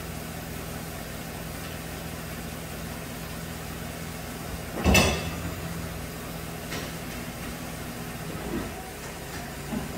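GMC Sierra pickup's engine idling steadily, with one loud thud about five seconds in as the truck's door is shut, and a few faint clicks later.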